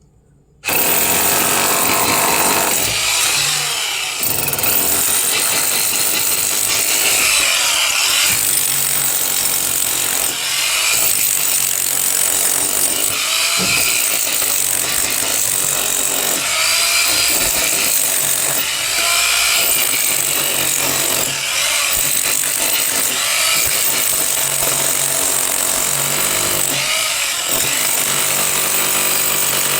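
Electric power tool running under load, starting abruptly under a second in and running on with small dips and changes in pitch.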